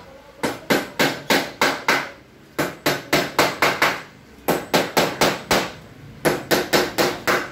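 Hammer blows on the wooden frame of a pool table under construction, about four sharp strikes a second in four quick runs separated by short pauses.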